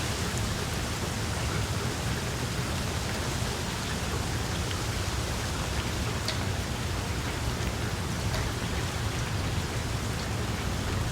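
Steady rain falling on tree leaves, an even hiss with a few sharper drop ticks now and then.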